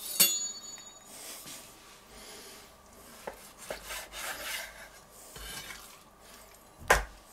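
Kitchen knife cutting raw beef on a wooden cutting board: soft scraping, sawing and rubbing strokes. There is a brief metallic ring at the start and a sharp knock near the end.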